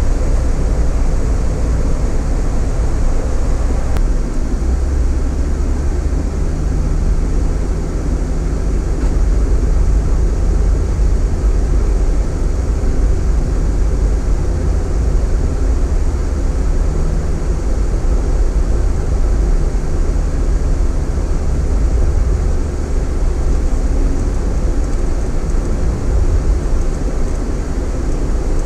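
Steady low road and engine rumble inside the cabin of a Cadillac Escalade being driven.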